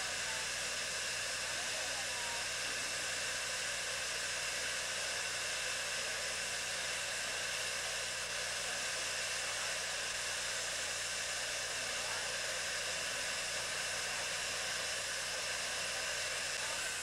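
Steady hiss of steam from a standing narrow-gauge steam locomotive, with a faint low hum beneath.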